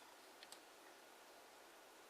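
Near silence: a faint hiss with a couple of faint ticks of kraft origami paper being handled about half a second in.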